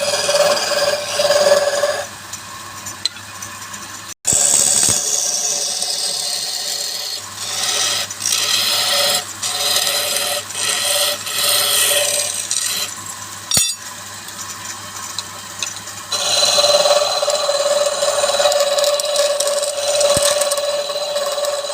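Woodturning tool cutting wood spinning on a lathe: a hissing scrape over a steady hum. It cuts out for a moment about four seconds in, then comes in short strokes about once a second, and runs steadily again near the end.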